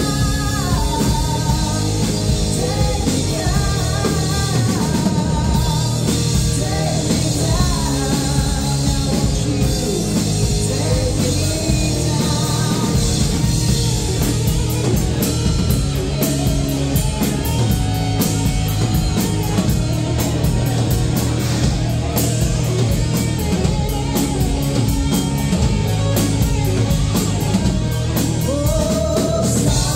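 Live rock band playing loud: a woman sings lead over drum kit and electric guitars.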